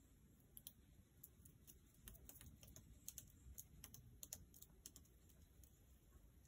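Near silence with faint, irregular clicks and ticks scattered through it.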